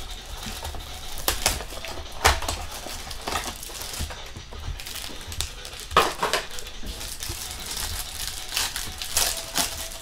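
Plastic-foil trading-card pack wrappers crinkling and tearing as packs are ripped open and cards handled. It is an irregular run of crackles, with a couple of louder crackles about two and six seconds in.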